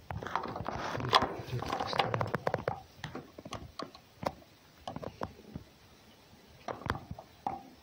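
Scuffling and rustling of fur and straw against a wooden box for the first couple of seconds, then scattered light taps and clicks.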